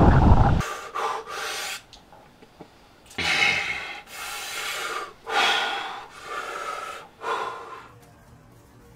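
Wind noise on the microphone cuts off within the first second. Then a man breathes heavily: about six loud, rasping breaths in and out, each under a second long, dying away near the end.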